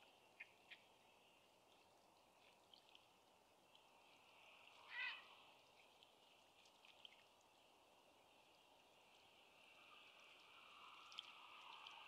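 Quiet outdoor ambience over shallow water: a few faint splashes near the start as a wading little egret stirs its feet, and a single short bird call about five seconds in.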